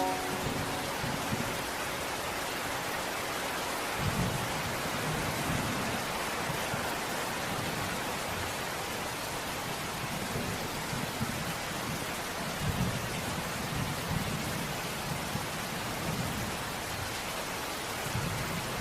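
Steady rain falling, with soft low rolls of distant thunder swelling several times.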